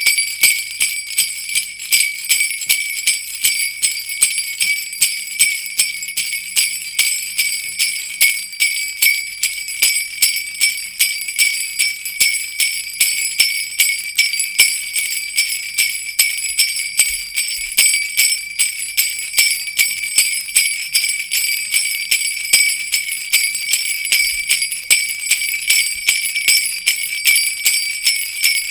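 Sleigh bells jingling continuously in a steady, even rhythm of shakes, with bright, high ringing.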